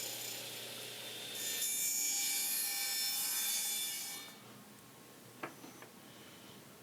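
A saw cutting through a small piece of plywood, a steady hissing cut that grows louder partway in and stops about four seconds in. A couple of faint clicks follow.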